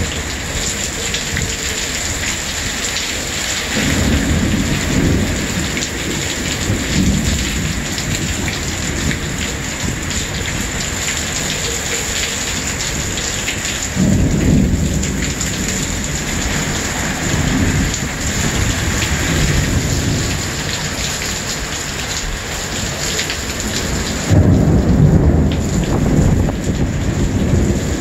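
Heavy thunderstorm rain pouring steadily, with several low rolls of thunder rumbling through it; the loudest roll comes near the end.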